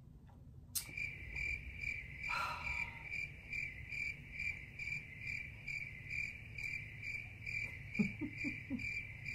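A high-pitched electronic beeping: one steady tone pulsing about three times a second, starting abruptly about a second in and carrying on without a break.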